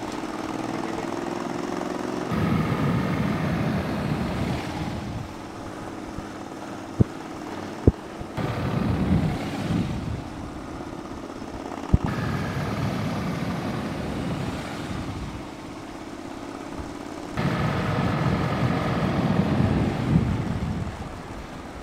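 A motor vehicle's engine running at low speed with wind rushing over the microphone. The sound shifts abruptly every few seconds where shots are cut, with a few sharp clicks in the middle.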